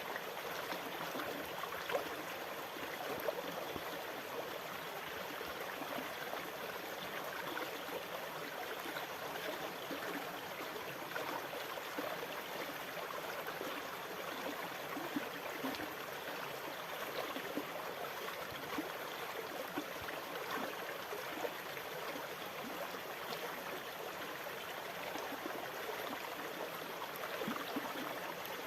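Water trickling and splashing steadily, a constant bubbling babble with no rise and fall of breaking waves.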